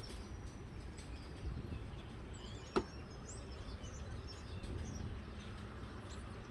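Wild birds chirping faintly in short high calls, thickest around the middle, over a steady low wind rumble. One sharp click near the middle.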